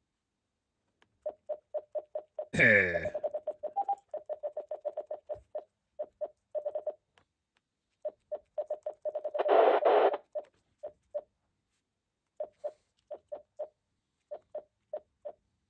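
Keypad beeps from a TYT MD-9600 mobile radio running OpenGD77 firmware: many short same-pitch beeps in quick runs and single taps as its keys are pressed. A loud short crackling burst comes about 3 s in, and about a second of hiss from the radio's receiver about halfway through.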